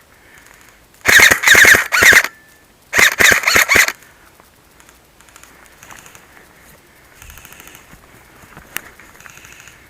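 Airsoft gun firing two loud rapid full-auto bursts, each about a second long, a second or so apart; one sharp click follows near the end.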